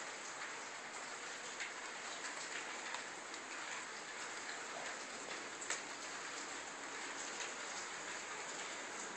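Steady even hiss with a few faint ticks scattered through it.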